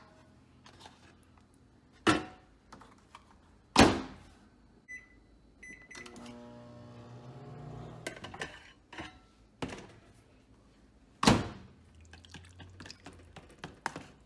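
Microwave oven in use: sharp knocks of its door and a plastic food container, loudest about four seconds in and again about eleven seconds in. Between them the keypad beeps twice and the oven hums as it runs for a couple of seconds.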